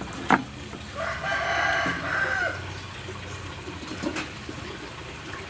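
A rooster crowing once, starting about a second in and lasting about a second and a half, with a sharp click just before it.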